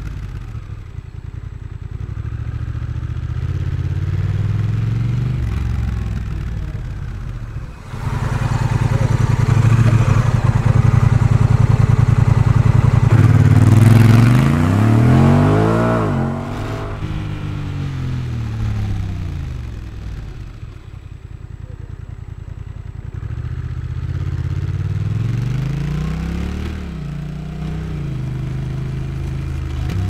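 Honda Rebel 1100's parallel-twin engine through its stock exhaust, revving up and dropping back several times as the bike accelerates and slows. The note is loudest and climbs highest around the middle, then falls away in a run of falling sweeps.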